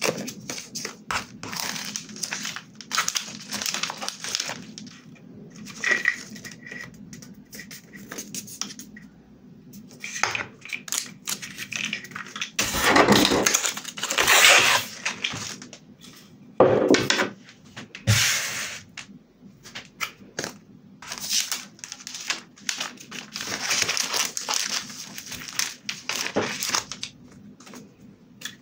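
Close-up crinkling and rustling of clear plastic film and metallic foil being handled and pressed onto a paper journal page, with scattered small taps and clicks. The loudest crinkling comes about halfway through.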